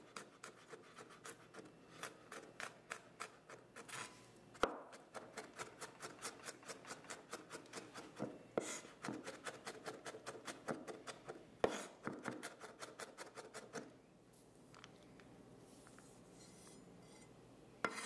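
Chef's knife mincing garlic on a wooden cutting board: quick light taps of the blade, about four or five a second, with a few harder knocks, falling softer for the last few seconds.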